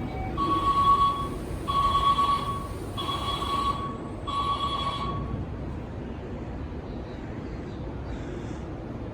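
Split-flap departure board on a station platform changing over: four ringing electronic tones, each just under a second, with a fast rattle of turning flaps under them. Both stop about five seconds in, leaving steady platform background noise.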